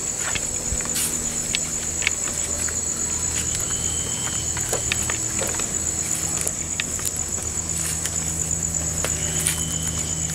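Crickets trilling in a steady, high-pitched chorus, with a low hum beneath and a few faint scattered clicks.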